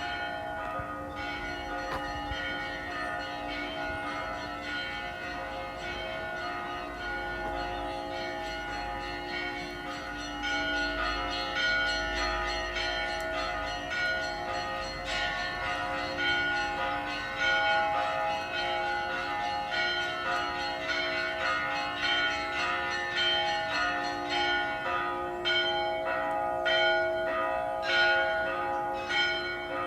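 Several church bells ringing together in a continuous peal, strikes overlapping on many held tones; it grows louder about ten seconds in.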